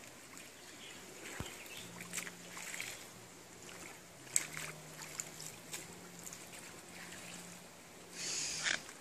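Scattered small clicks and rustles of hands searching through a shallow stream bed and leaf litter, with a louder, half-second rustle near the end. A faint low hum sits underneath.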